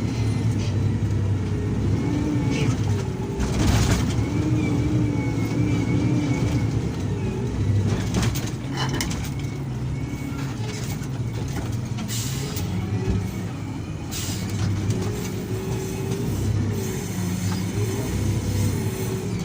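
Diesel engine of a heavy earthmoving machine running under load while it works, its pitch wavering up and down, with a few short knocks or scrapes.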